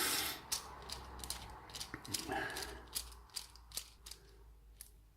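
Small metallic clicks and rattles from a padlock and its picking tools being handled, after a brief rustle at the start, growing fainter towards the end.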